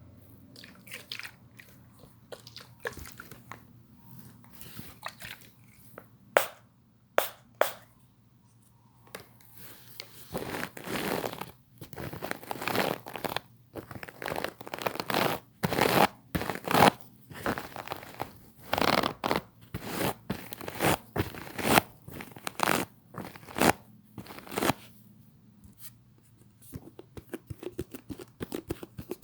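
Sheets of paper handled close to the microphone, rustling and crinkling in irregular bursts: sparse at first, thick and continuous from about ten seconds in, thinning out near the end.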